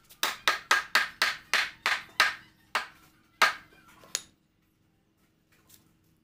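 Hammer blows on a wooden bed frame: about a dozen quick, sharp strikes, roughly three a second, that slow and stop about four seconds in, then start again right at the end.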